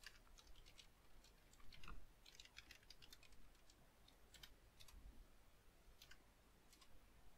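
Faint computer keyboard and mouse clicks: scattered single keystrokes and clicks, with a short cluster about two and a half seconds in.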